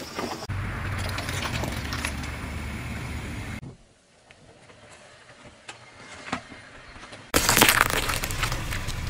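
A car tyre rolling slowly over objects and crushing them, in a run of short takes. First a steady low rumble with crackling for about three seconds, then a quieter stretch with a few faint clicks, then a loud crackling crunch near the end.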